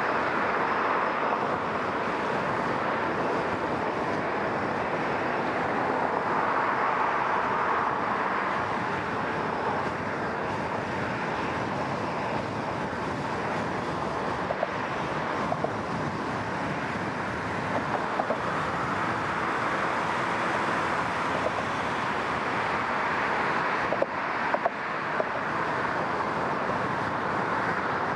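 Car driving at speed on a multi-lane road: steady tyre and road noise with surrounding traffic. A few brief ticks are heard in the second half.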